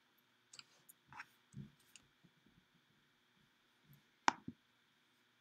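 Faint computer clicks and small desk-handling knocks, with two sharp clicks close together about four seconds in.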